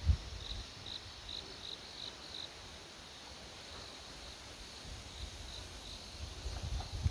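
A cricket chirping in short, evenly spaced chirps, about two or three a second, clearer in the first couple of seconds and fainter after. Wind rumbles on the microphone at the start and again near the end, with one sharp thump right at the start.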